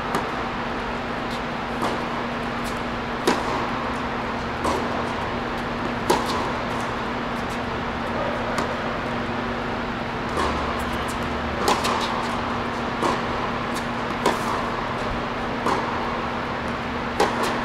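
Tennis balls struck by rackets and bouncing on a hard court during a baseline rally in an indoor tennis hall: sharp pops roughly every second and a half, with a pause of a few seconds midway, over a steady low hum.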